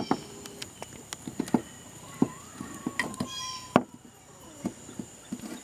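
Irregular small clicks and rustles of insulated electrical wires being handled and twisted together by hand.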